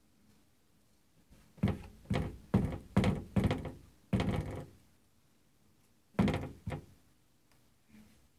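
Vanity cupboard doors knocking against their frame as a cat paws and pulls at them: a quick run of about six thuds, then two more a little later and a faint one near the end.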